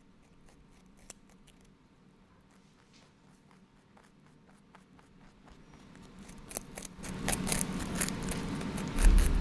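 Wood fire catching alight: sparse, faint crackles build into dense, loud crackling from about seven seconds in. A low thump comes near the end.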